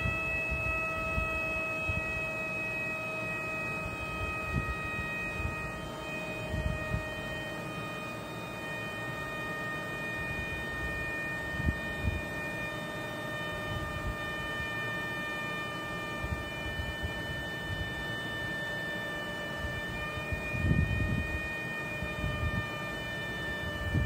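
Vacuum leak detector's audible leak-rate signal: a steady hum-like tone with overtones that sinks slowly in pitch as the leak-rate reading falls, over low rumbling and a couple of dull thumps.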